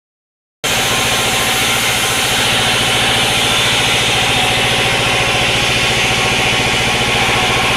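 Sawmill machinery's engine running steadily with an even, fast pulse. It cuts in abruptly about half a second in.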